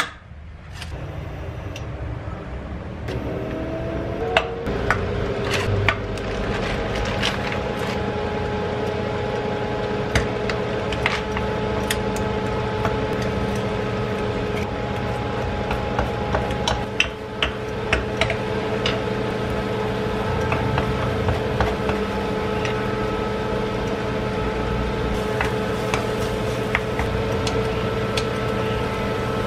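An induction cooktop running with a steady hum and whine, which starts a few seconds in. Scattered clicks and knocks of a wooden spoon and utensils against the frying pan come over it.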